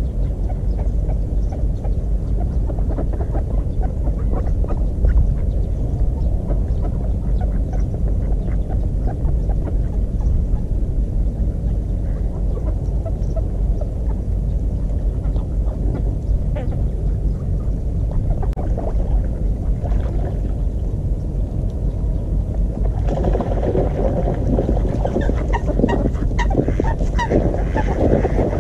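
Ducks quacking, with the calls growing busier and louder about two-thirds of the way in, over a steady low rumble of wind on the microphone.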